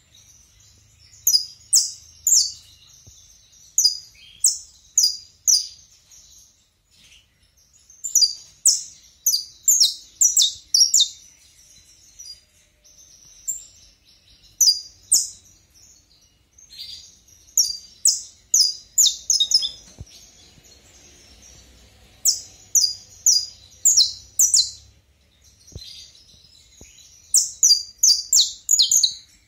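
Young male saffron finch (canário-da-terra) singing. It sings repeated short phrases of sharp, high, downward-sweeping notes, several notes in quick succession, with a pause of a second or two between phrases.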